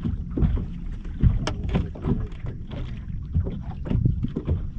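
Small waves slapping irregularly against the hull of a fishing boat, with wind rumbling on the microphone.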